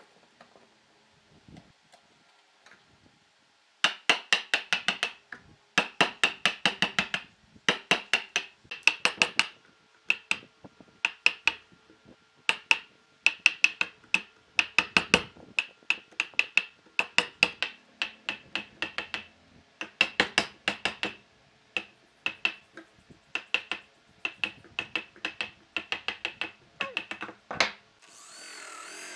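A chisel being driven into a wooden log by quick, sharp blows in bunches of several strikes with short pauses, chopping out the waste between saw kerfs. Just before the end a corded power drill with a spade bit starts up and runs steadily.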